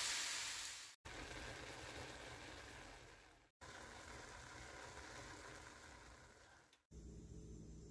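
Meat and corn frying in a skillet: a loud sizzle that fades out about a second in. After cuts come fainter steady hiss and, near the end, a low steady hum.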